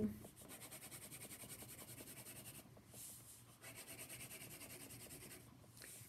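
Wax crayon scribbling on paper: rapid back-and-forth strokes, several a second, with a short pause near the middle.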